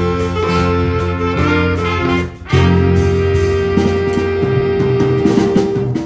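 Jazz band of saxophones, trumpet, keyboard and drum kit playing. Sustained horn chords break off briefly about two seconds in, then a long held chord follows with the drums playing under it.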